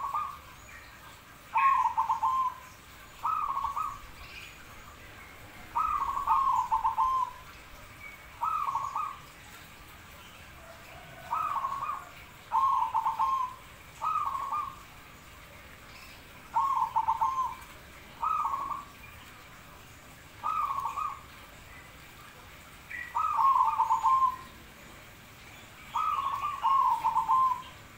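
Zebra dove (perkutut) cooing: short trilled coo phrases, some doubled, repeated every one to three seconds.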